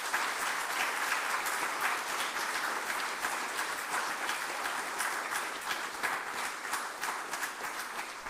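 A roomful of people applauding steadily, easing off near the end.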